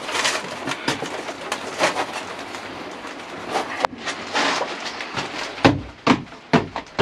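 Rigid foam insulation board being pushed into place between wooden battens on a van floor: scraping and rubbing, then about four knocks in quick succession near the end.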